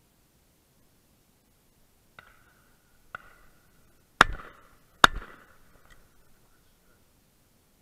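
Shotgun fired twice in quick succession, two loud shots under a second apart, each trailing off. A couple of much fainter clicks come a second or two before the shots.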